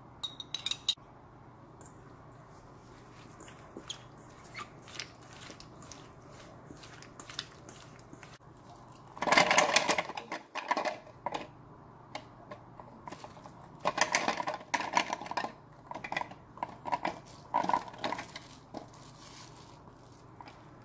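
Peeled garlic cloves dropped by the handful into the plastic bowl of a small food processor, knocking and clattering against the plastic in several bunches, the loudest about halfway through. The motor does not run.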